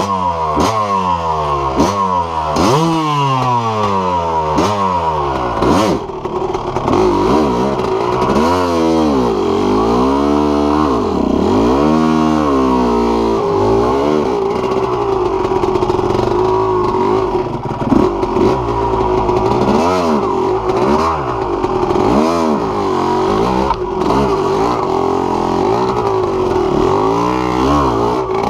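Yamaha YZ250 single-cylinder two-stroke dirt bike engine being ridden hard, revving up and down over and over as the throttle is worked and gears change. There are a few sharp knocks in the first six seconds.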